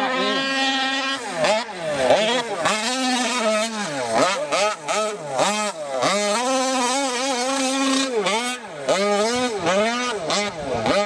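RCMax 71cc two-stroke petrol engine of a Losi 5ive-T RC truck revving up and down over and over as the throttle is worked on and off. The pitch rises and falls every second or so, and is held steady for a second or two in places.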